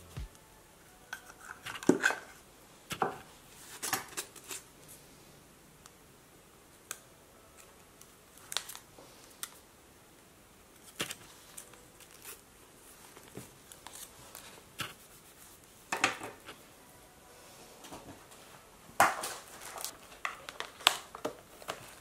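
Close-up paper handling: rustling and crinkling of paper scraps and stickers, broken by scattered sharp little taps and clicks. These bunch up around two seconds in and again near the end.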